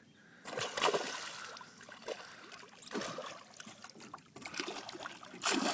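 Water splashing as a hooked muskie thrashes at the surface, in irregular bursts: about half a second in, around three seconds, and a louder one near the end.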